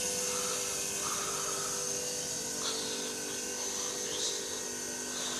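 White-Westinghouse dehumidifier running with its compressor just started: a steady hum carrying a few fixed tones over the even whoosh of its fan.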